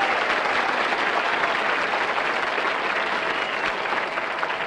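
Studio audience applauding, dense and steady: the applause that casts the audience's vote for a contestant.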